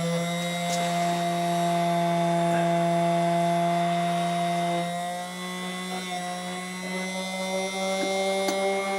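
Antique Singer 24-7 chain stitch sewing machine stitching at speed on an electric motor: a steady mechanical whine whose pitch steps up slightly about five seconds in.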